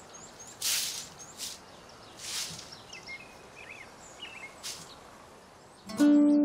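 Long-handled broom sweeping dry earth: three slow swishes, with small birds chirping between the strokes. A plucked-string music chord comes in sharply near the end.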